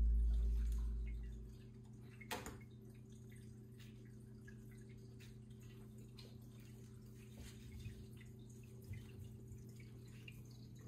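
Kitten batting a Cheerio on a hardwood floor: faint scattered taps and clicks, with one sharper click about two seconds in, over a steady low hum. A deep low sound fades out over the first second and a half.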